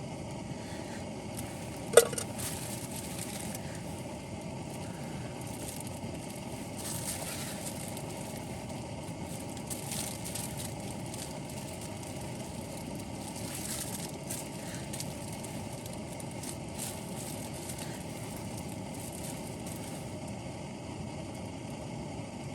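Steady rumbling wind with scattered faint crackling and one sharp pop about two seconds in.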